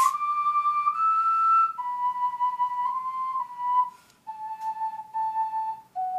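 Solo ocarina playing a slow melody of held, pure notes that step gradually downward, with short breath gaps between phrases.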